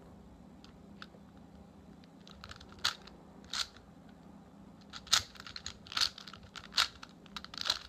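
A few faint clicks of a 4x4 Rubik's cube being turned, then heavy gasping breaths from about three seconds in, coming louder and faster: breathing being recovered after a long held breath.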